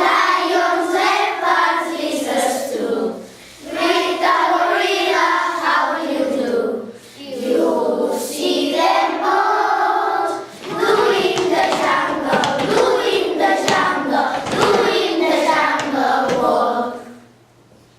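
A group of voices singing a song together in phrases of a few seconds, with short breaks between them, stopping about a second before the end. A steady low hum sits underneath.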